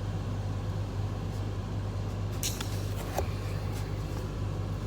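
A steady low machine hum, with a few light clicks about halfway through and a small tap just after.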